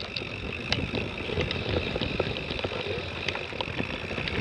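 Mountain bike rolling over a rough, gravelly dirt track: a steady low rumble from the tyres, with many scattered rattles and clicks from the bike jolting over bumps.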